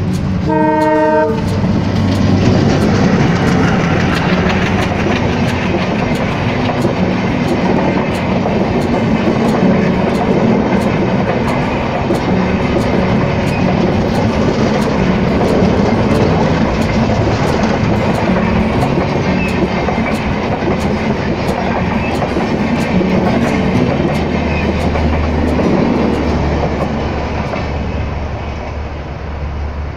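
Diesel locomotive and a long rake of passenger coaches passing at speed, the horn sounding briefly at the start. Then a steady rumble of wheels with a regular clickety-clack over the rail joints, easing off near the end as the train moves away.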